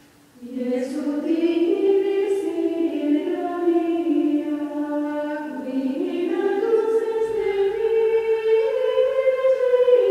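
Choral music: a choir singing long held notes that move slowly from pitch to pitch, coming in about half a second in after a brief hush.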